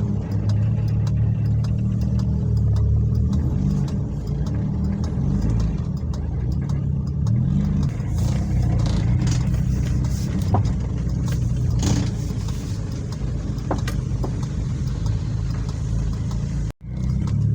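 1997 Suzuki Baleno's engine running, a steady low hum whose pitch wavers up and down, with light clicks scattered through it.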